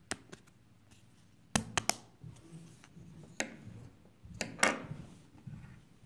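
Small wooden parts of a knife kit clicking and knocking together by hand as thin wooden spacers are pressed onto dowel pegs. The clicks come scattered and sharp, with a quick cluster about a second and a half in and louder knocks about four and a half seconds in.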